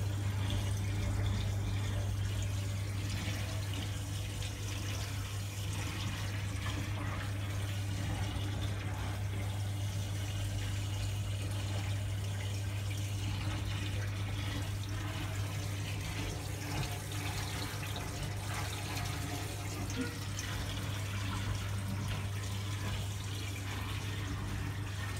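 Aquarium water running steadily, as from a filter return, over a constant low hum from the tank's pump.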